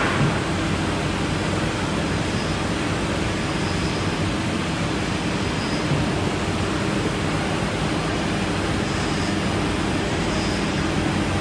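CNC router spindle milling grooves into a wooden panel: a steady machine whir with an even rush of cutting noise and a constant low hum.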